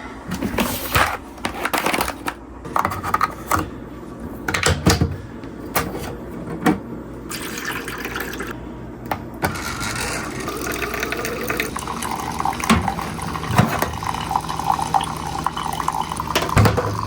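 Kitchen handling clatter, a few knocks and clinks, then water running from a tap into a container, filling it, with a faint rising tone as it fills, while coffee is being made.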